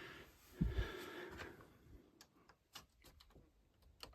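Faint clicks and small knocks of circuit breakers being handled and wiggled in an electrical panel, with a soft low thump about two-thirds of a second in.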